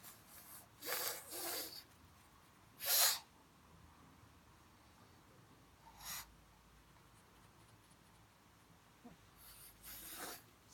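Pug making short, noisy sneeze-like bursts through its nose, five or six over about ten seconds. The loudest comes about three seconds in, and a cluster follows near the end.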